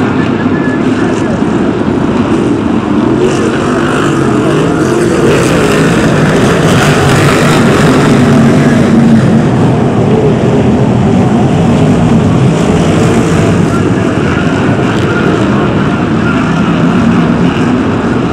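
Several BriSCA F1 stock cars' V8 engines racing together, loud and continuous, the engine notes rising and falling as the cars accelerate out of the bends and pass the stands.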